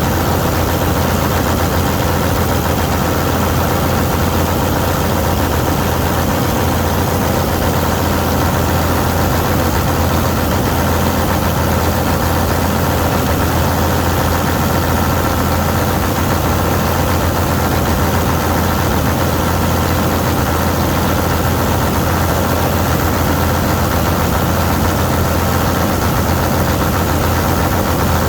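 Vistula KZB-3B combine harvester running steadily, its engine and machinery making an even, unbroken hum.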